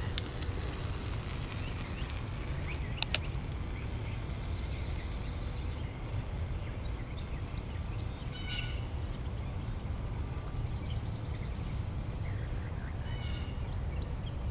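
Outdoor street ambience: a steady low rumble, with short bird calls twice, about two-thirds of the way through and near the end.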